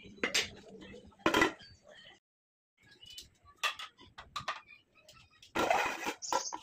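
Steel kitchenware being handled: a ladle clinking against a serving bowl, then a flat steel plate lid clattering and scraping on a cooking pot, with a short high metallic ring near the end.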